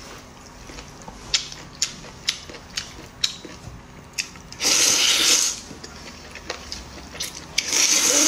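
Slurping wide flat noodles from a bowl: two long, loud slurps, one about halfway through and one near the end. Before them comes a run of small sharp clicks.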